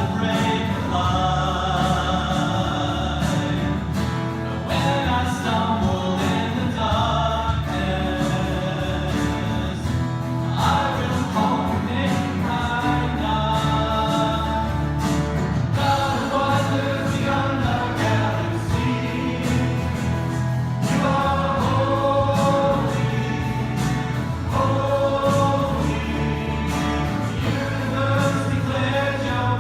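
A group of voices singing a contemporary worship song in sustained phrases over instrumental accompaniment.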